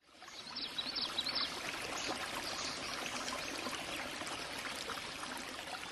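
Water of a small stream cascading over rocky steps, a steady rushing that fades in at the start, with a few short high chirps about a second in.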